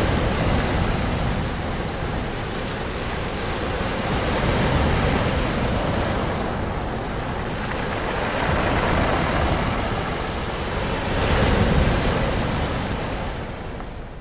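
Ocean waves breaking and washing ashore as a continuous surf rush, swelling louder with each incoming wave about four times.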